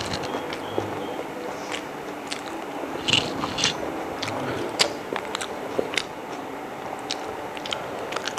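A person chewing and biting a mouthful of chicken biryani, with irregular small wet clicks and smacks.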